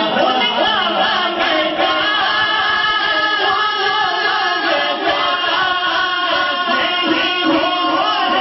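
A man singing a naat, an Islamic devotional poem, into a microphone over a public-address system, his voice gliding and wavering through long ornamented phrases over steady held tones beneath.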